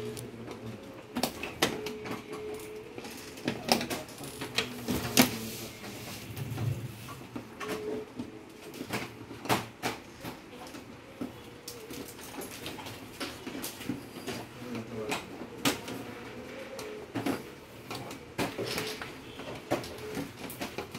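Irregular clicks, taps and knocks of hands and tools handling the plastic and metal parts of an LED TV as it is taken apart.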